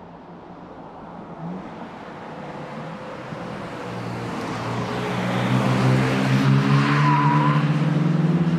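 BMW M3 Competition sedan and M4 Competition coupé running hard through a hairpin, their twin-turbo straight-six exhausts growing steadily louder as the cars come close. A brief high squeal about seven seconds in.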